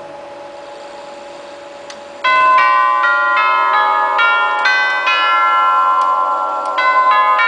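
Herschede Model 217 hall clock's nine tubular chimes being struck by the clock's hammers, starting about two seconds in. They play a chime melody, one note about every half second, each tube ringing on under the next.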